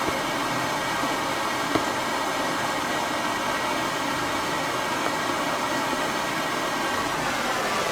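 Steady hiss of background noise with a faint hum, unchanging throughout, and one short click about 1.7 s in.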